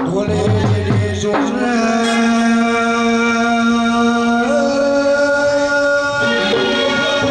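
Gujarati devotional folk music with a man singing one long held note that steps up in pitch about four and a half seconds in.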